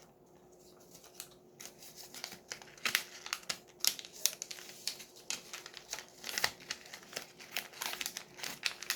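Sheet of origami paper being folded and creased by hand, with irregular crinkling and crackling as the folds are pressed down.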